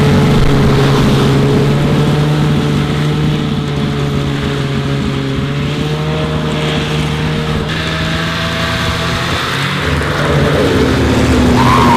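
Snowmobile engine running at a fairly steady pitch while pulling a rider on a tow rope, the pitch shifting slightly a couple of times.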